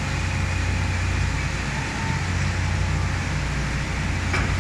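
Steady low engine rumble, as of traffic or running machinery, with a brief click a little over four seconds in.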